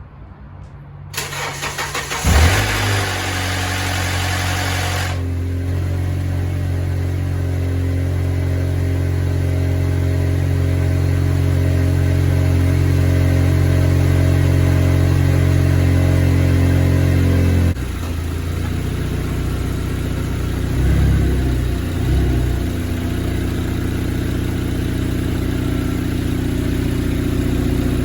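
Straight-piped Honda Accord engine starting, catching about two seconds in, then idling loudly and steadily on its freshly changed oil; the idle drops a step about two-thirds of the way through.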